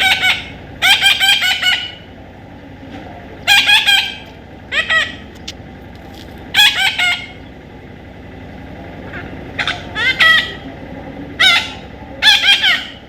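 Parrot calling: about eight short calls, each under a second, with the pitch arching up and down, at irregular gaps of one to three seconds.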